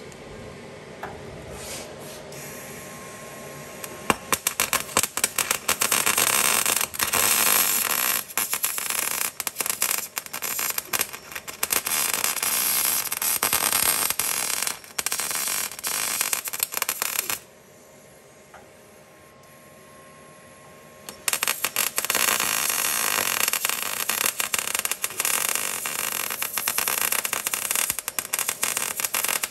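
MIG welding arc crackling and sizzling as a steel strengthening plate is welded onto the chassis rail. The crackle starts a few seconds in, runs for over ten seconds, breaks off for about four seconds, then resumes for a second long run.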